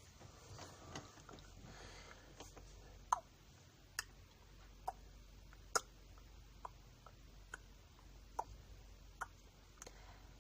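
A regular series of sharp, quiet clicks, about one a second, after light rustling in the first couple of seconds.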